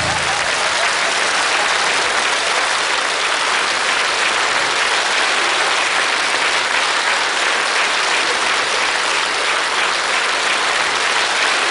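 Large studio audience applauding steadily, a dense even clatter of many hands with no music under it.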